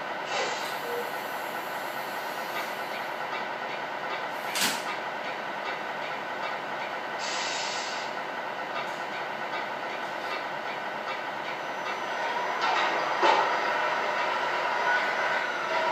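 Sound unit of a radio-controlled 1/14-scale Scania R620 truck playing a steady simulated diesel idle, with short bursts of hiss a few times. The sound grows louder about twelve seconds in.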